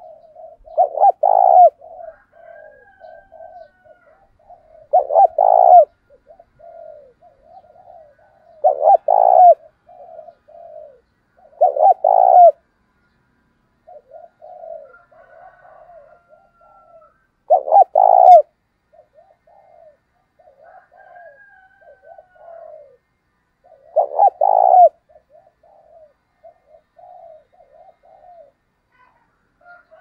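Male spotted dove cooing: six loud coo phrases a few seconds apart, with softer coo notes between them. This is the challenge coo of a decoy bird, used to provoke rival males.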